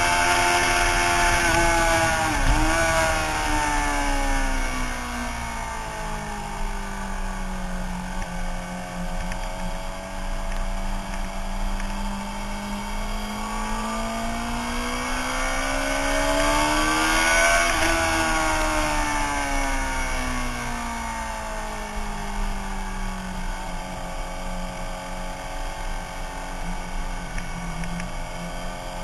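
Suzuki sportbike engine heard from on board at track speed, with wind rushing past. Its pitch drops sharply about two and a half seconds in, holds low, then climbs steadily to a peak around seventeen seconds in and falls away again, starting to rise once more near the end.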